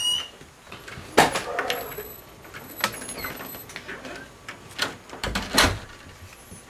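A door squeaks briefly on its hinge, then shuts with a sharp knock about a second in. A few lighter knocks follow, and a low thump comes near the end.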